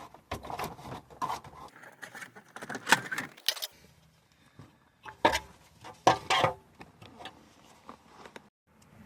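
Plastic dash trim panel being popped loose and handled: a run of clicks, snaps and rattles, the sharpest about three seconds in and again about five to six and a half seconds in.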